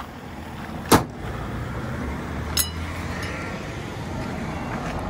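Front bonnet of a Toyota MR2 Spyder slammed shut: one loud bang about a second in, then a lighter, ringing click about a second and a half later.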